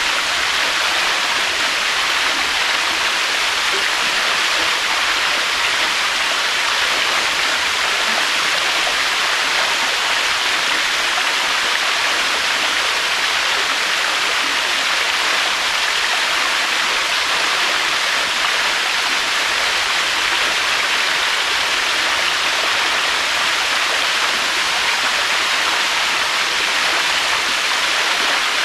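Waterfall: a steady, unbroken rush of falling water, even in loudness throughout, with no swells or surges.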